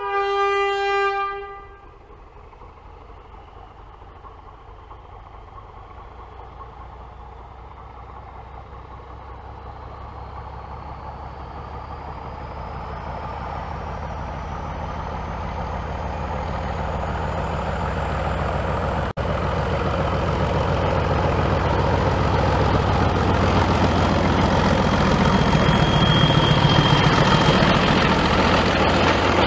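A diesel locomotive's horn sounds a low note for about a second and a half, then the locomotive's engine runs and grows steadily louder, with a whine that rises in pitch.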